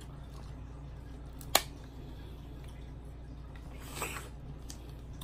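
Close-up eating sounds from a crab and shrimp seafood boil: one sharp snap of crab shell about a second and a half in, then a short slurp as crab meat is sucked into the mouth around four seconds, over a steady low hum.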